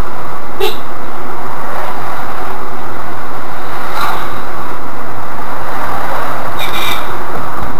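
Steady, loud road and engine noise inside the cabin of a Škoda Rapid 1.6 MPI on the move, with a few brief sharp clicks: about half a second in, about four seconds in, and near the end.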